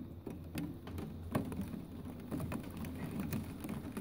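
Rain pattering, with single drops ticking irregularly on a hard surface over a low steady rumble.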